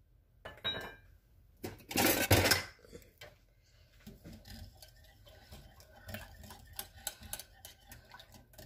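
A loud clatter about two seconds in, then a wire whisk ticking rapidly against a glass bowl as it beats lemon custard cooking over a double boiler.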